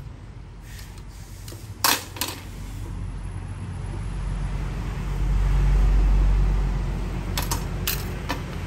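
Steel kitchen knives clinking as they are handled and set down, a couple of sharp clinks about two seconds in and again near the end. Under them a low rumble swells over a few seconds and fades.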